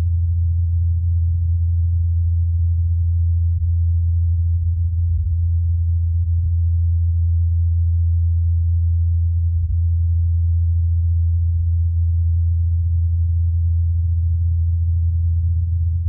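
Ingenuity Mars helicopter's rotor blades, spinning at 2,537 rpm, heard as a steady low hum. It was recorded by Perseverance's SuperCam microphone, muffled by the thin Martian atmosphere, and filtered and amplified to bring out the blade tone.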